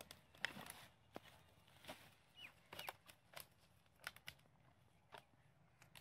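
Faint irregular footsteps and light rustling on dry leafy ground, with two faint high chirps about halfway through.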